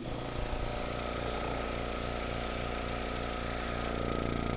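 Electric vacuum pump running steadily with a low, evenly pulsing hum, pulling a vacuum on a small chamber to degas mixed epoxy; the chamber is holding about 29 inches of mercury with no leak.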